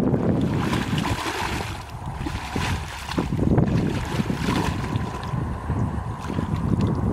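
Wind buffeting the microphone in a steady low rumble, with muddy water sloshing and splashing as a person wades knee-deep through it and gropes in the water by hand.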